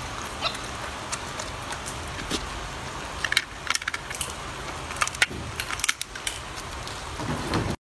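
Golden snub-nosed monkey chewing food, with scattered crackly clicks and crunches over a steady hiss like light rain. The sound cuts off just before the end.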